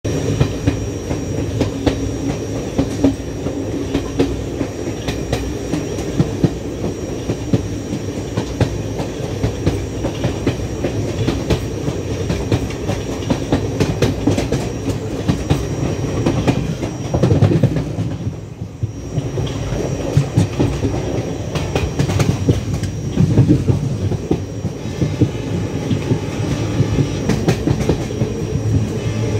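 Train running along the track, heard from on board: a steady rumble with the wheels clicking over the rail joints. The sound dips briefly about two-thirds of the way through.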